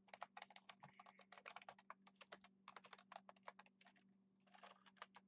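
Typing on a computer keyboard: a quick run of keystrokes for about four seconds, a short pause, then a few more keys near the end. A faint steady hum runs underneath.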